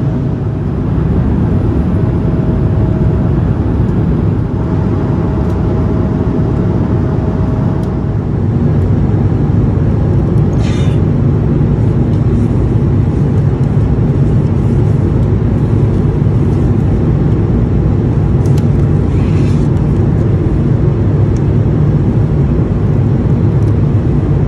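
Airliner cabin noise aboard an Airbus A220-300: a loud, steady low rush of engines and airflow. A faint steady tone sits over it in the first part, and two brief higher-pitched noises stand out later.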